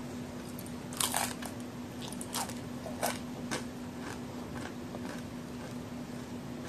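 Biting and chewing a large homemade chocolate-and-raisin cookie, its crisp crust crunching. The loudest crunch comes about a second in, three more follow over the next few seconds, then softer chewing.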